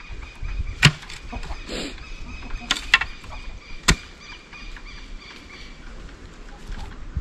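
A long-handled digging spade striking into soil and clods, four sharp knocks in the first few seconds, with chickens calling in the background.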